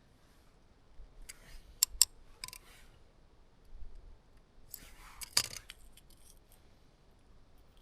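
Small metal clicks and scrapes of bicycle disc brake pads being worked out of a hot brake caliper by hand, with two sharp clicks a moment apart about two seconds in. The pads are worn down to their metal backing.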